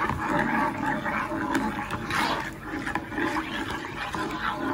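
Spoon scraping and swishing around the bottom of a ceramic-coated saucepan, stirring thin milk custard as it heats, in repeated strokes about once a second.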